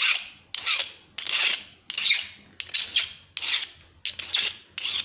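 Hand file scraping across the rim of a thin brass funnel made from a .50 BMG cartridge case, in repeated short strokes about one every three-quarters of a second, evening up a rim that is dinged and dented.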